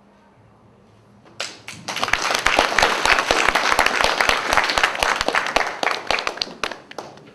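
Audience applauding. It starts about a second and a half in, is loud and dense with many separate claps, and dies away near the end.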